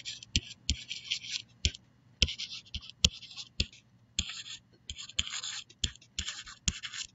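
Stylus writing by hand on a tablet surface: a string of short scratchy strokes, each starting with a light tap, as letters are written one after another.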